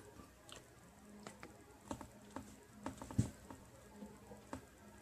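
Faint, irregular small clicks and taps, about a dozen over a few seconds, over a low steady hum.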